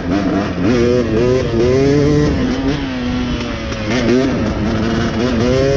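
Dirt bike engine revving up and down while being ridden, its pitch rising and falling several times.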